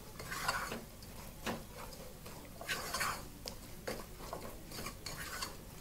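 Wooden spoon stirring a thick peanut sauce in a non-stick pot, with soft, irregular scrapes and knocks of the spoon against the pot.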